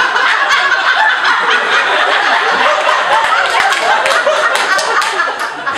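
Audience laughing loudly, many voices at once.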